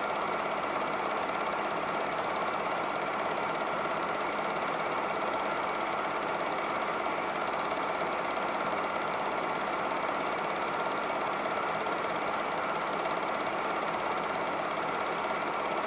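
Super 8 film projector running, a steady mechanical clatter with the film moving through the gate; the digest itself is silent, so the projector is all that sounds.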